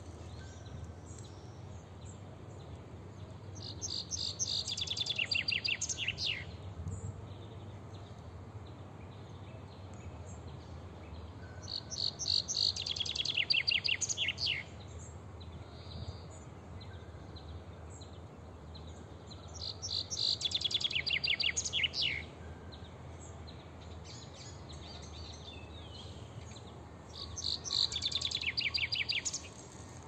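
A songbird singing the same fast, descending trilled phrase four times, each lasting about two seconds and coming about eight seconds apart, over a steady low background rumble.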